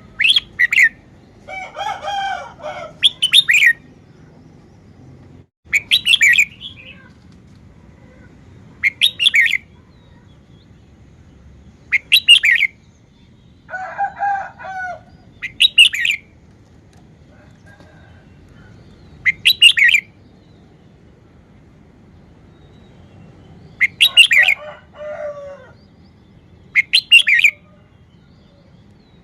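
Red-whiskered bulbul singing short, loud whistled phrases, one every three seconds or so, with lower warbling notes three times in between.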